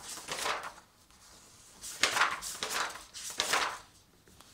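Pages of a spiral-bound paper book being turned, three rustling swishes of paper.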